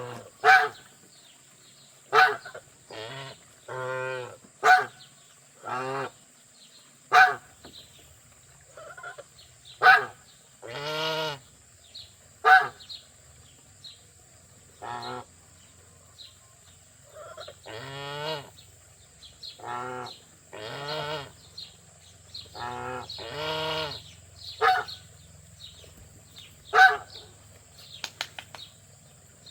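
Domestic geese honking over and over, about twenty calls in all: short sharp honks mixed with longer, drawn-out calls, one every second or so.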